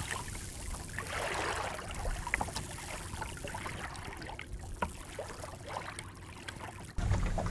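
Water trickling and lapping along the hull of a small open sailing dinghy, a Welsford Navigator, moving slowly under sail, with a brief swish about a second in and scattered light clicks throughout.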